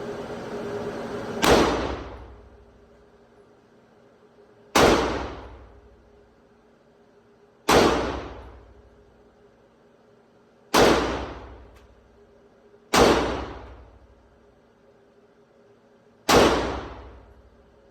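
Six single gunshots fired a few seconds apart, each a sharp crack that rings off for about a second.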